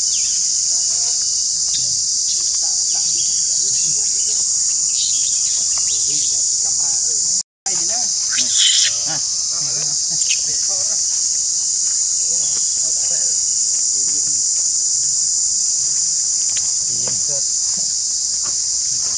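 Loud, steady high-pitched insect chorus, an unbroken dense buzz, which cuts out for a split second about seven and a half seconds in. A few brief faint squeaky calls sound over it just after the dropout.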